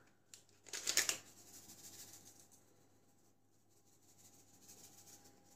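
A small paper sachet of vanilla sugar rustles as it is handled and torn open, briefly, about a second in. Faint rustles follow as the sugar is shaken out of it.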